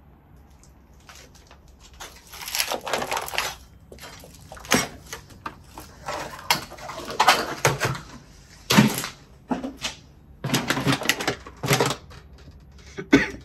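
Irregular bursts of rustling and scraping noise, about a dozen, some lasting up to a second, with short gaps between them.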